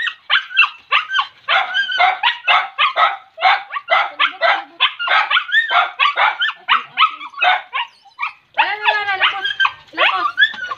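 Small dog barking in rapid high-pitched yips, about four a second, as it is held and washed in a basin.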